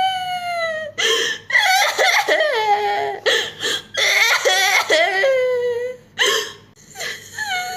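A very high-pitched voice crying: long drawn-out wails and shorter, wavering sobbing cries, broken by brief catches of breath, with a short lull about six seconds in before another wail.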